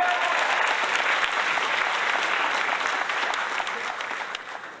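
Crowd applauding, dying away over the last second or so.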